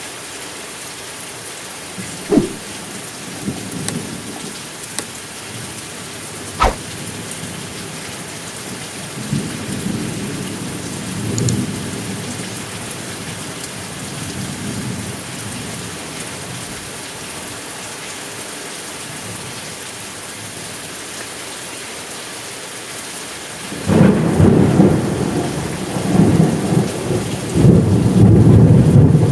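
Thunderstorm: steady rain falling throughout, with two sharp thunder cracks about two and six seconds in, softer low rumbles of thunder in the middle, and a loud, rolling low thunder rumble that sets in near the end.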